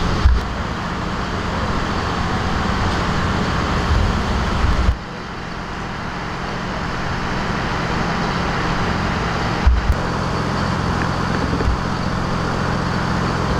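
Steady urban street noise: traffic with a low engine hum underneath, broken by a few short low thumps. The background changes abruptly twice.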